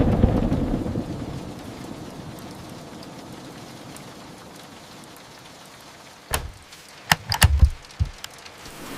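Steady rain. It opens with a loud rumble of thunder that fades over a second or two, and several sharp cracks come close together about six to eight seconds in.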